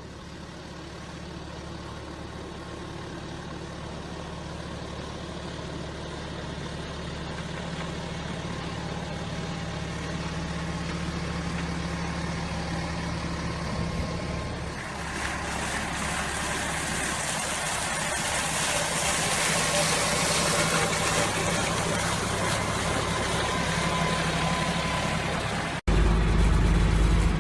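Diesel engine of heavy machinery running steadily and growing slowly louder. From about halfway, a broad rushing noise rises over it. Near the end the sound cuts off abruptly to a louder, deeper engine.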